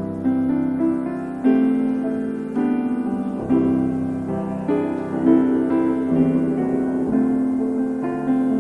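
Slow piano music, chords struck about once a second and left to ring.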